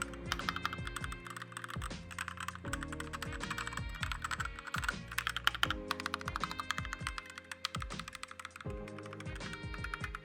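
Thunderobot KL3089 mechanical keyboard being typed on, a steady stream of rapid key clicks played as a sound test of its switches, with soft background music underneath.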